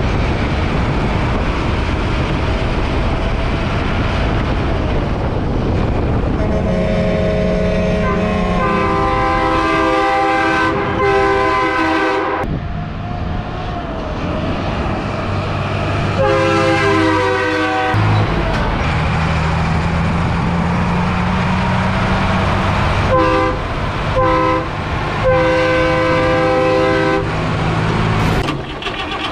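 Multi-tone air horn on a Dodge D600 dump truck, sounded in a string of blasts: several short toots and a few held for about two seconds, with the truck's engine running underneath.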